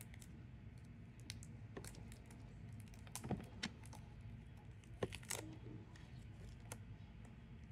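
Scattered light clicks and taps of plastic bottles and packaging being handled and arranged in a small plastic tub, with a few sharper taps about three and five seconds in, over a faint low hum.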